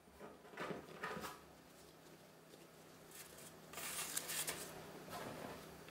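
Faint rustling of parchment paper and soft bumps as raw bun-dough balls are set down on a parchment-lined baking tray, the plainest rustle about four seconds in, over a faint steady hum.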